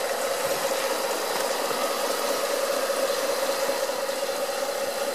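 A motor running steadily, with a constant mid-pitched tone over an even hiss.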